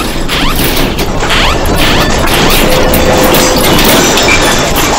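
Loud, continuous rattling and crashing of a building's contents in strong earthquake shaking. Rising early-warning alarm tones fade out during the first second or two.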